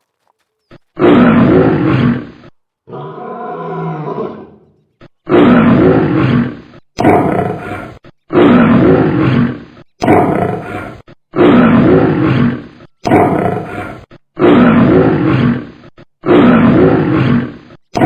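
Recorded animal-call sound effect: the same short call, about one to one and a half seconds long, is played again and again with short silent gaps. One quieter, more tonal call comes about three seconds in.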